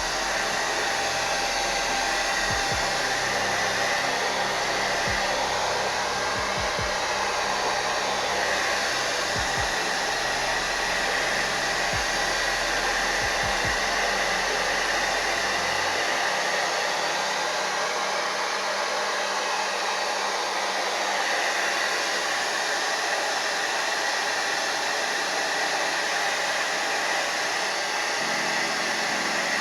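Handheld hair dryer running steadily on hot heat, blowing on a wig.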